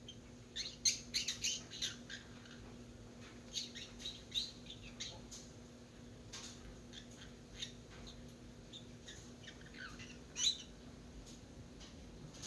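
A young green-cheeked conure chirping and squawking in short, high calls that come in bursts, as a baby bird trying out its voice.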